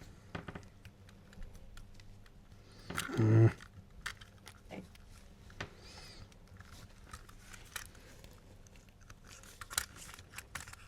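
Faint, scattered small clicks and ticks of a screw and screwdriver being worked into a Märklin model locomotive's motor housing, with a brief vocal sound about three seconds in.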